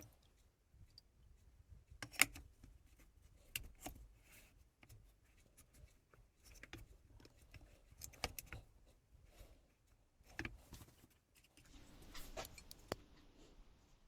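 Kai Shun kitchen knife being worked on a wet Solicut 1000/3000 combination whetstone: quiet, irregular scraping strokes with sharp clicks and knocks every few seconds.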